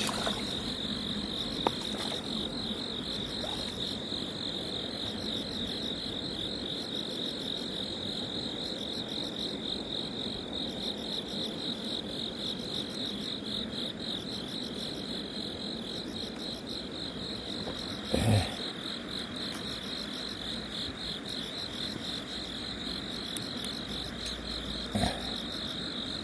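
Crickets chirping in a steady, fast-pulsing chorus, with two brief dull thumps, one about two-thirds of the way through and one near the end.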